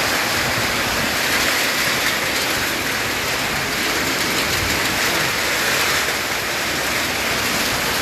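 Torrential storm rain mixed with hail pouring down, a steady heavy hiss.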